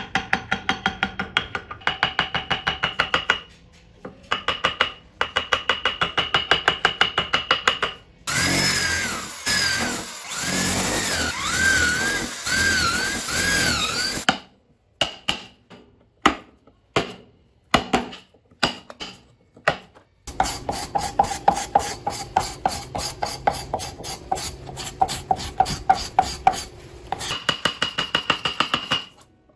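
Hand carving tools tapping and scraping on wood in fast, even runs of sharp clicks with a slight metallic ring. In the middle, a drill runs for about six seconds, its pitch wavering up and down as it bores into the wood, followed by a few separate knocks.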